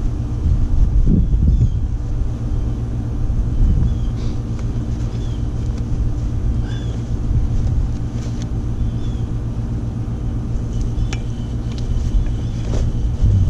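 Steady low outdoor rumble with a constant low hum, faint high chirps scattered through it, and a few light knocks in the second half as the canvas bag of tent poles is handled.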